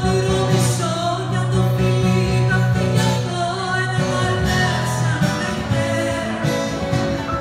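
A woman singing live, accompanied by acoustic guitar and piano.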